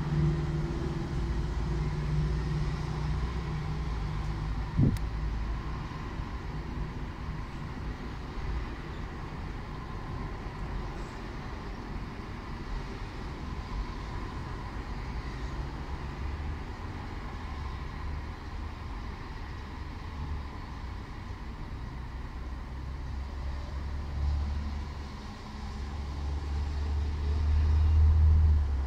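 Road traffic going by: a steady low rumble of passing cars, with one vehicle growing louder near the end as it passes close. A single sharp click about five seconds in.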